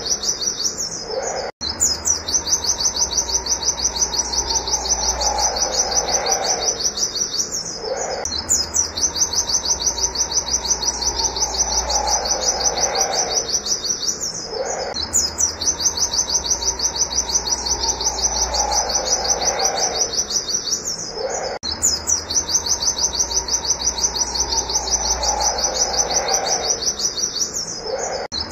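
A pleci (white-eye) singing its 'nembak wit wit' song: a fast, high-pitched run of repeated 'wit' notes. The song breaks off briefly about every six to seven seconds, then starts again the same way. A fainter steady hum sits underneath.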